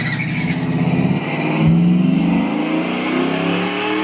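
Truck engine at full throttle in a drag race, its pitch climbing steadily as it pulls through a gear, with a jump in loudness about a second and a half in.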